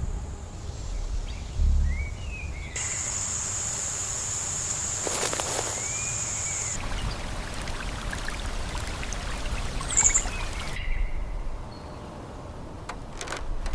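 Outdoor nature ambience: birds chirping now and then over a low rumble of wind. A steady high-pitched insect buzz runs for a few seconds in the middle, and the background changes abruptly several times.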